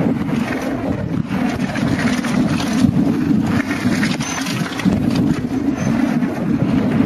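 Wind rushing over the microphone of a camera riding on a downhill mountain bike, steady and loud, with frequent small knocks and rattles from the bike running over rough trail.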